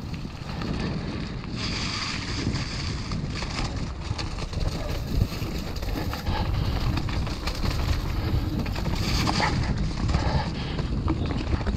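Mountain bike ridden fast over wet gravel and a muddy trail: wind buffeting the camera microphone, tyres hissing and splashing through wet ground, with scattered knocks and rattles from the bike.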